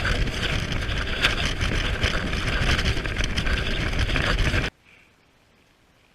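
A boat under way, with a loud steady rush of engine, water and wind noise on the microphone. It cuts off suddenly about four and a half seconds in.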